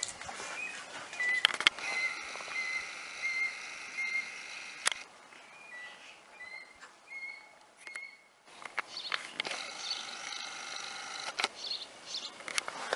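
High-pitched chirping animal calls: short rising notes and longer held cries, repeating, with a few sharp clicks in between.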